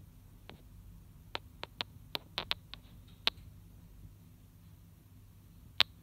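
Great spotted woodpecker pecking at a suet ball in a wire cage feeder: sharp, irregular taps, a quick run of about eight in the middle and single taps before and near the end.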